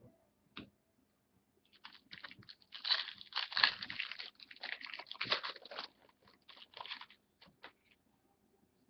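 Crinkling and crackling of a trading card pack wrapper being handled and torn open, dense for about four seconds and then thinning to a few scattered crackles.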